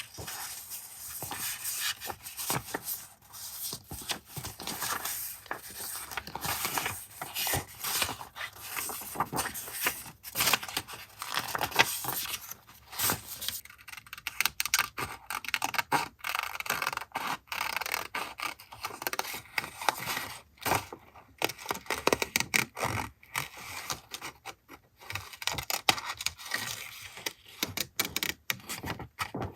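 Paper and stationery handled close to the microphone for a journal collage: irregular scraping, rustling and small taps, with the snips and tears of paper being cut and torn.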